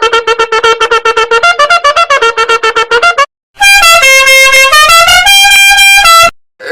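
Two comic meme sound effects played back to back: a fast run of short horn-like honks, several a second, then after a brief gap a held brassy horn tune whose notes step up and down in pitch, cutting off suddenly.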